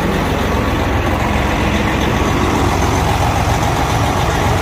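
Semi-truck's diesel engine idling steadily.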